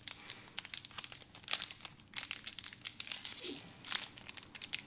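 Pokémon booster pack's foil wrapper crinkling and tearing in irregular crackly bursts as it is handled and opened.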